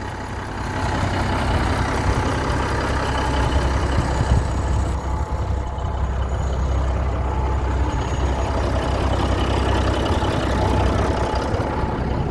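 Heavy diesel truck engine idling steadily, a low, even rumble.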